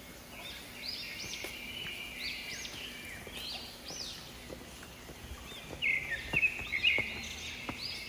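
Forest birds calling: a chorus of repeated high, arching chirps rising and falling in pitch, over a steady high hiss. A few soft knocks are heard among them.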